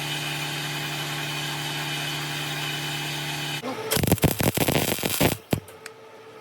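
A die grinder runs steadily with a held hum, cleaning rust off a car exhaust pipe, then shuts off about three and a half seconds in. Just after, there is a loud, irregular crackling for about a second and a half, like a welder's arc striking on the thin, rusty pipe.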